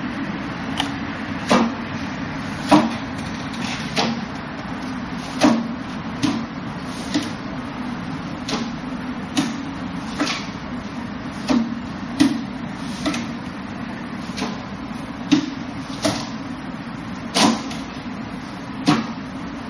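Forearms and hands striking the wooden arms and trunk of a Wing Chun wooden dummy: a string of sharp wooden knocks at an uneven pace, roughly one a second, some much louder than others.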